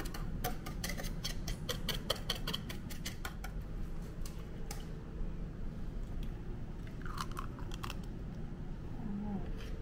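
A kitchen utensil clicking rapidly against a mixing bowl as ingredients are stirred, for about three and a half seconds, then a few scattered clinks and taps.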